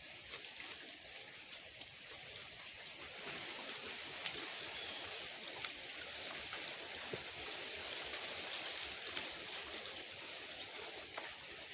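A faint, steady hiss of outdoor background noise, with scattered small clicks and smacks from people eating with their hands.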